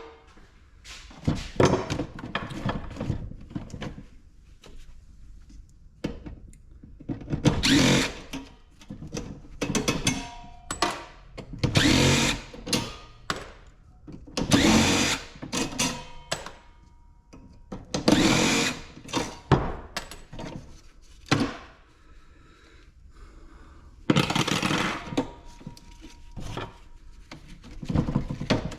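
Power drill/driver running in repeated short bursts, each about a second long, with pauses between, as screws are driven out of a small ice maker being taken apart for scrap.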